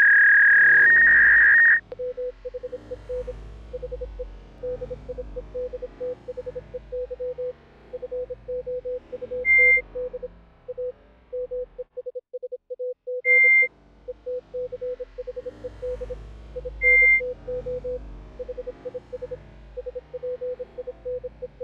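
A loud steady electronic tone with hiss for about the first two seconds, then a long series of short electronic beeps at one pitch, in quick phrase-like runs, standing in for a character's voice as subtitle dialogue appears. Three brief, louder, higher beeps break in between the runs.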